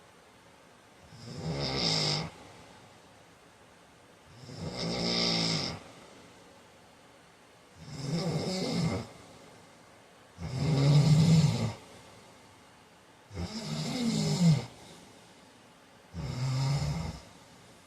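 A man snoring in his sleep: six snores, each about a second long, coming roughly every three seconds with quiet between them.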